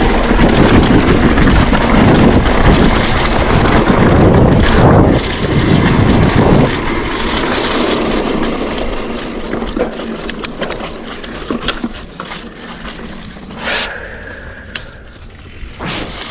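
Mountain bike riding on a dirt trail: a loud rush of wind on the microphone with tyres and rattling bike noise. About seven seconds in it gets quieter, and it turns into scattered sharp clicks and knocks as the bike slows.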